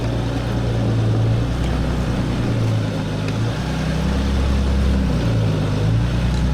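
Diesel engine of a Jeep Gladiator running at low speed while crawling a rocky off-road trail, a low drone that rises and falls in pitch as the throttle changes, with tyre and trail noise over it.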